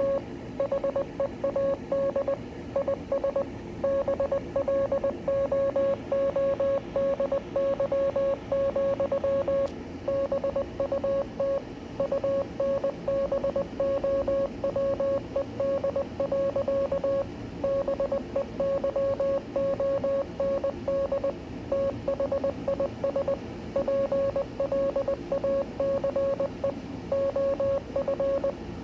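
Morse code: a single beep tone keyed on and off in fast runs of short and long beeps with brief gaps between letters and words, spelling out the text of the poem Invictus. A steady hiss sits under it.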